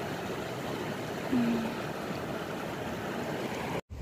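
Steady rush of shallow river water running over stones. About a second in there is a short voice-like sound.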